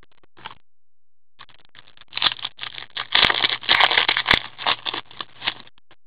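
Trading cards being shuffled and flipped through in cotton-gloved hands: a dense run of rustling and scraping with sharp clicks, starting about a second and a half in, loudest in the middle, and stopping shortly before the end.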